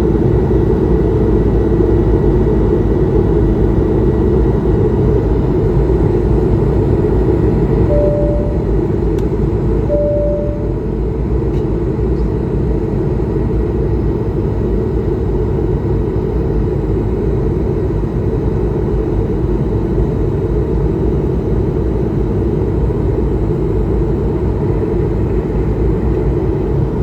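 Steady cabin noise of an Airbus A220-300 airliner in flight, the deep rush of its Pratt & Whitney geared turbofan engines and airflow heard from a window seat. Two brief beeps of the same pitch come about two seconds apart a third of the way in, and the noise eases slightly just after them.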